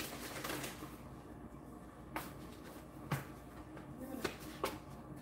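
Quiet kitchen room tone, with about four faint, sharp clicks or knocks spread through the second half.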